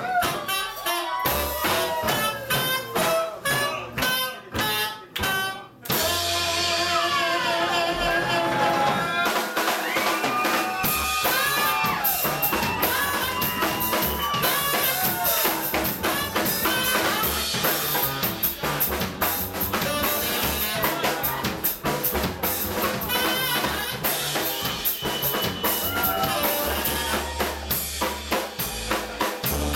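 Live jazz band playing: drum kit, upright bass and saxophone. For about the first six seconds the drums carry a beat of sharp hits, then the whole band comes in together.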